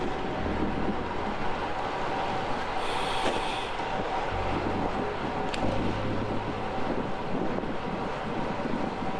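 Steady rush of wind on the microphone and rolling tyre noise from a road bike at race speed, with a short hiss about three seconds in.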